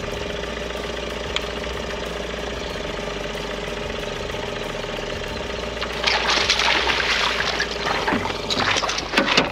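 A boat motor running at a steady idle, a constant hum. About six seconds in, a louder rushing, hissing noise joins it.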